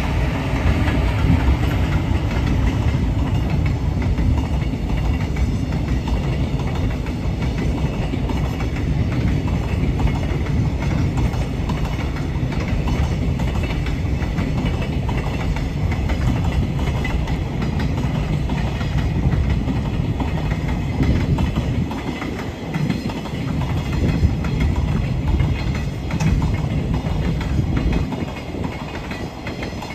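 Container freight train rolling past at speed: a continuous heavy rumble with the wheels clattering over the rail joints, easing off near the end.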